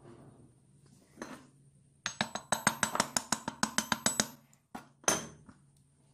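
Small hammer tapping a wooden handle scale down onto the glued tang of a knife: a fast run of about twenty light taps, eight or nine a second, with a short metallic ring, then two more single taps. The taps seat the freshly glued scale onto the tang.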